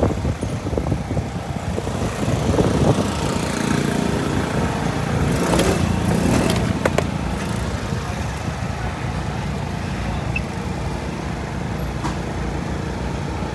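Small motor scooter engine running as the scooter is ridden slowly, a steady low drone throughout.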